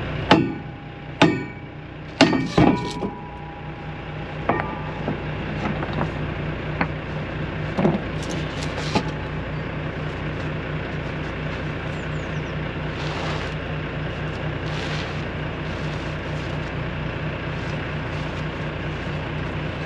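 Heavy diesel truck engine running at a steady drone. Several sharp metallic clanks ring out in the first few seconds, followed by a few fainter knocks.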